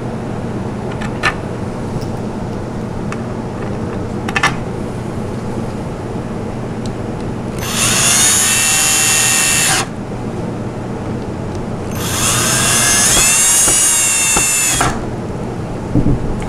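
Cordless drill driving two screws into a wooden high chair: two runs of about two and three seconds, starting about eight and twelve seconds in, the second climbing in pitch as the motor spins up. A few small knocks of handling, the last near the end as the drill is set down on the table.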